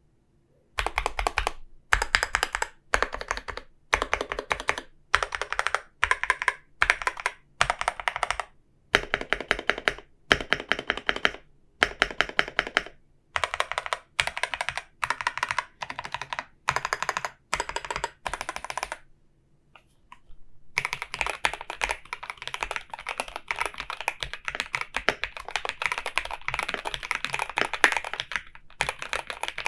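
Typing on an Epomaker Shadow-X mechanical keyboard with Gateron Pro Yellow linear switches: short bursts of rapid keystrokes about once a second, then after a brief pause about two-thirds of the way in, continuous fast typing.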